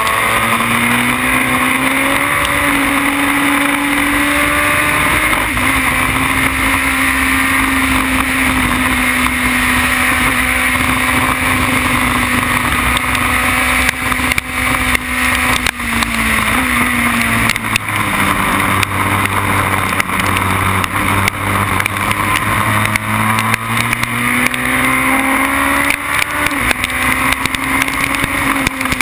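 Formula BMW single-seater's 1.2-litre four-cylinder engine heard from the cockpit at racing speed. It holds a high steady pitch on a straight, then lifts off about halfway with brief breaks as the driver downshifts for a corner. It runs at a lower pitch through the corner and climbs again near the end under acceleration, over a steady rushing hiss of wind and spray on the wet track.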